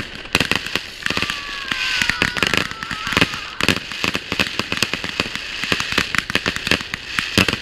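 Many consumer fireworks going off at once: a dense run of bangs and crackling. About a second in, a high whistle falls slowly in pitch for a couple of seconds.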